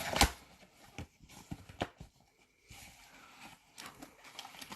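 Trading cards and cardboard packaging being handled: a sharp tap about a quarter second in, then a few lighter taps and soft rustling.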